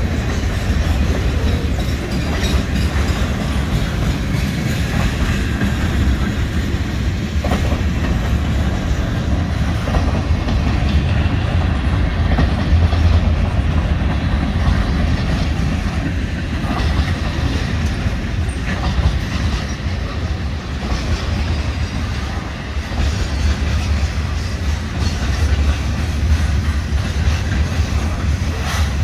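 Norfolk Southern freight train cars rolling past at close range: a steady low rumble with wheels clicking over rail joints.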